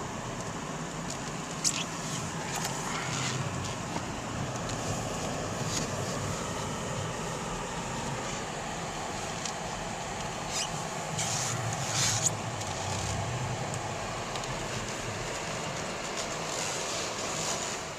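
Steady rumble and hiss of a vehicle driving, with a few short sharp clicks.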